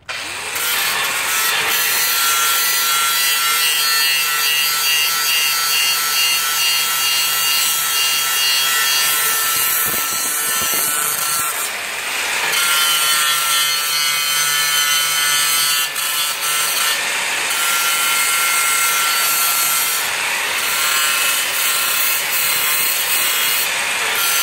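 Electric angle grinder running continuously as it grinds a metal beam clean before welding, a steady high whine over grinding noise that changes briefly twice, about halfway through and again later.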